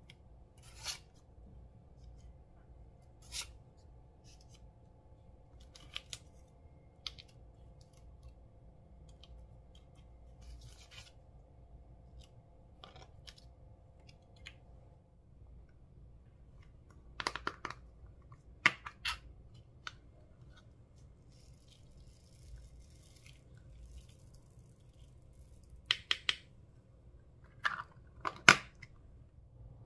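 Scattered sharp clicks and snaps of small objects being handled, bunched into quick clusters about two-thirds of the way in and near the end, over a low steady hum.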